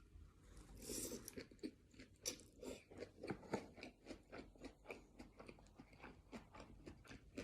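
Close-miked chewing and biting of sushi: a fast, irregular run of short wet clicks and crunches, several a second, a little louder in the first half.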